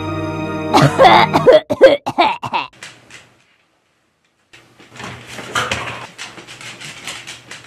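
A sudden loud crash and clatter of objects falling and breaking, starting about a second in and lasting under two seconds. After a short silence, a quieter run of rapid light clattering and scuffling follows.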